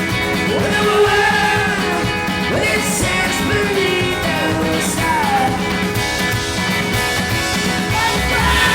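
A rock band playing a song live, with a voice singing over the band.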